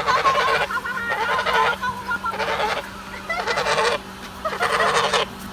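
Geese honking: harsh, raspy calls in about five bouts.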